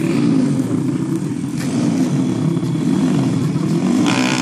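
Small four-stroke underbone motorcycles (a Yamaha Vega and a Honda Karisma) running hard in a street race, a steady engine rumble. A louder, higher burst of sound comes near the end.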